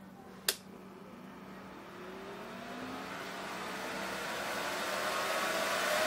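A single click, then a small 12-volt cooling fan mounted inside a mini fridge spinning up, its whir rising steadily in pitch and loudness, over a steady low hum.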